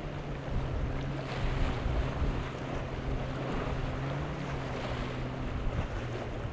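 Waves breaking and washing in the surf, with wind on the microphone, over a steady low hum of a boat engine running.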